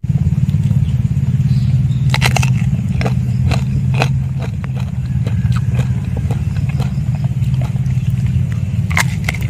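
A steady low rumble, with scattered sharp clicks and crackles from handling food over a clay bowl of chili sauce as a lime is squeezed and a spoon rests in the sauce.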